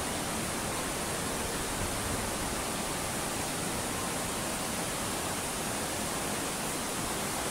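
Waterfall pouring down a steep, smooth rock face into a pool: a steady, even rush of water.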